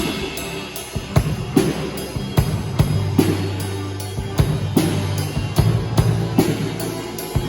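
Live band playing an instrumental passage: a drum kit keeps a steady beat on bass drum and snare, and a low bass note is held from a few seconds in.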